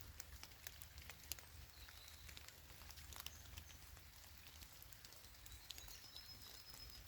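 Faint rain patter: scattered raindrops ticking irregularly over a low steady rumble.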